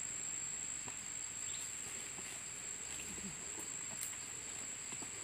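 A steady, high-pitched insect drone, with faint scattered scuffs and taps of the calf's hooves and the man's feet on the dirt track.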